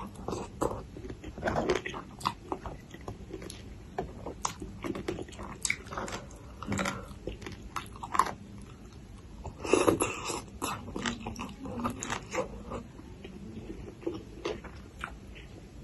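Close-miked biting and chewing of a spicy papaya salad with raw long beans: a string of crisp crunches and wet mouth sounds, with the loudest burst of crunching about ten seconds in.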